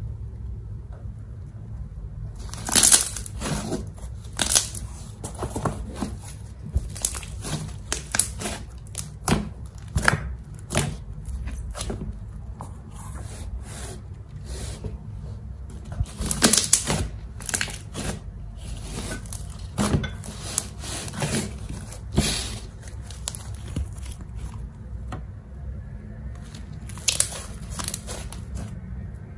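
Slime being stretched, folded and squeezed by hand, giving irregular sticky pops and crackles, with louder clusters about three seconds in, around the middle and near the end.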